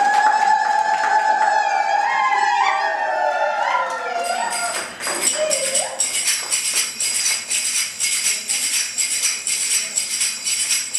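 For about the first four seconds a held, wavering tone sounds. Then brass finger cymbals (zills) take over, struck in a steady, even rhythm and ringing, as the dancers play them.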